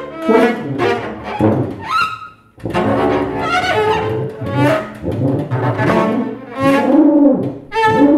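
Double bass bowed in improvised music, a run of short, separate strokes with a brief pause about two and a half seconds in.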